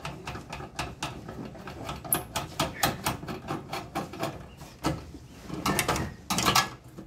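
Quick metallic clicks and rattles of a gas water heater's burner and valve parts being handled and worked loose by hand, with a louder clatter near the end.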